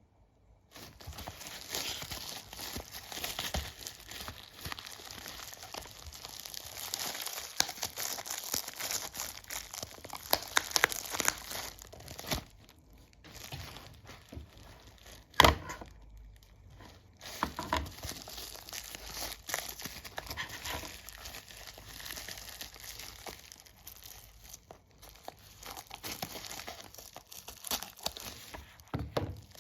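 Packaging being opened by hand, with irregular crinkling and tearing and many small clicks. One sharp snap comes about halfway through, with short pauses around it.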